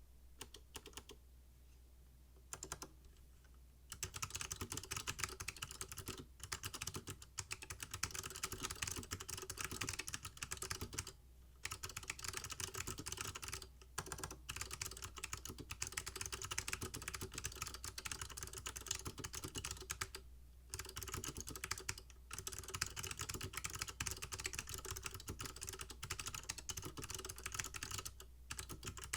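Typing on a mechanical keyboard with new-old-stock SMK Gen 2 Alps-mount (Monterey) switches under Apple Extended Keyboard II keycaps. A few scattered keystrokes, then from about four seconds in a fast, dense run of key clicks broken by a few brief pauses.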